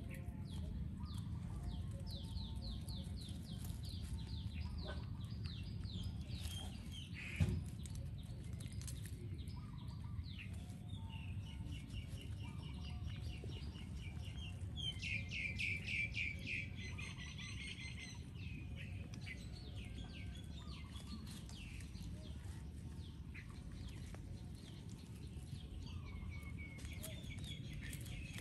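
Birds chirping, with runs of quick, repeated falling notes and a trill about halfway through, over a steady low rumble. One sharp click about seven seconds in.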